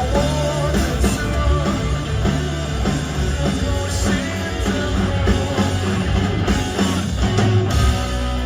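Live rock band playing loudly, with singing over drums and guitars; shortly before the end the drums and the full band drop out, leaving held ringing notes.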